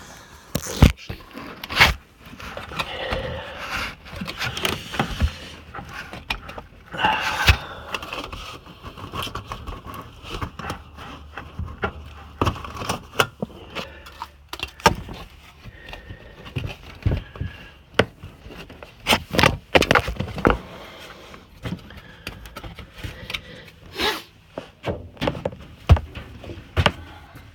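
Metal dryer vent duct being handled: scraping and rattling, broken by many sharp knocks and clicks.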